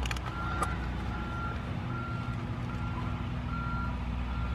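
A vehicle's back-up alarm beeping at an even pace over the low, steady hum of a running engine.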